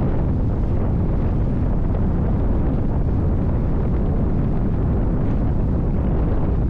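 Onboard sound of a NITRA 22 race boat running at speed: its V8 engine's steady low rumble mixed with wind buffeting the microphone.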